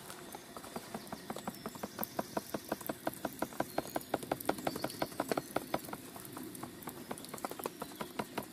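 A folded foam sit mat flapped rapidly back and forth over campfire embers, making quick, even flaps about five times a second. The fanning is blowing air into a dying fire to bring the hanging kettle to the boil.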